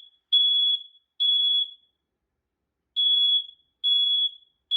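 Family Gard FG888D smoke alarm sounding its test-button alarm: loud beeps of one high steady tone from its piezo horn in the temporal-3 (code 3) pattern, three beeps, a pause of about a second, then three more. The cycle is fast.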